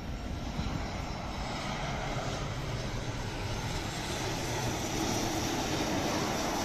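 Boeing 737 airliner's twin jet engines on final approach: a continuous rumble that grows louder as the plane comes in low and close.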